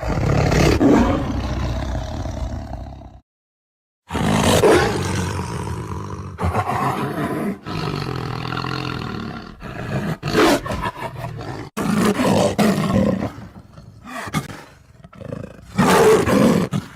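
Lion roaring repeatedly: one roar about three seconds long, a break of about a second, then a series of roars and shorter calls separated by brief gaps.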